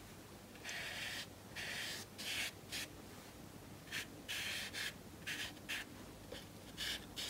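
Flat watercolour brush stroking and dabbing paint onto wet paper: a faint run of about a dozen short, soft brushing strokes with brief gaps between them.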